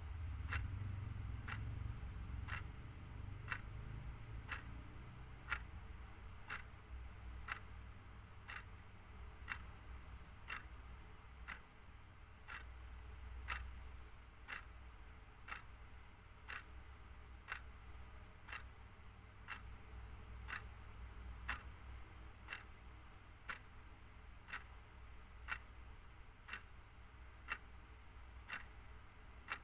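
Clock ticking steadily, about one tick a second, over a low background hum.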